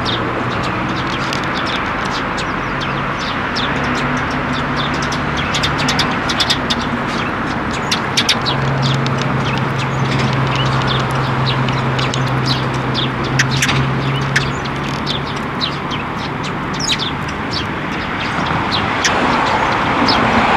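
Eurasian tree sparrows chirping, many short chirps throughout, over a steady background hiss and a low steady hum that is loudest in the middle.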